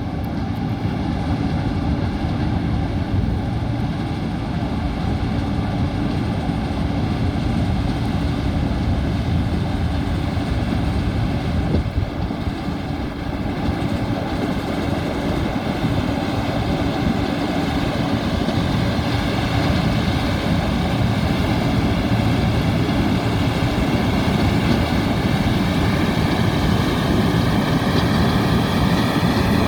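John Deere 9600 combine running steadily while harvesting corn: a continuous drone of the engine and threshing machinery, with steady high whining tones over it, one of them rising slightly near the end.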